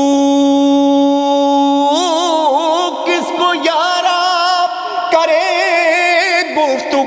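A single male voice chanting an Urdu devotional manqabat. For about two seconds he holds one long, steady note on the word "Hu", then breaks into a wavering melismatic run with heavy vibrato.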